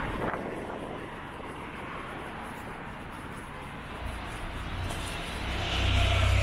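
Road traffic on a busy city street, swelling near the end with a low rumble as a vehicle passes close.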